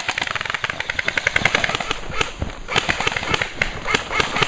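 Airsoft guns firing full-auto covering fire: rapid runs of sharp pops and clicks, several streams overlapping.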